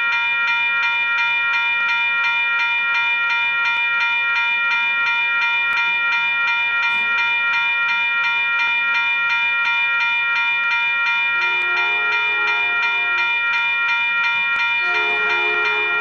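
Loud electronic grade-crossing warning bell ringing in rapid, even strikes. About twelve seconds in, and again near the end, the approaching Caltrain locomotive sounds its horn in long blasts.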